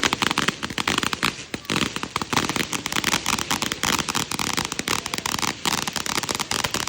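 Fireworks crackling: a dense, rapid run of small pops and cracks with hardly a gap, easing slightly about one and a half seconds in.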